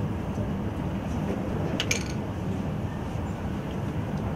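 Steady room noise with an indistinct murmur from the surrounding crowd, and one brief clink a little under two seconds in.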